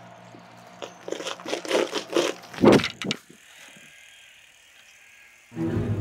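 Bicycle clicking and rattling in a quick run of mechanical strokes that builds to a loudest clatter about two and a half seconds in, then stops.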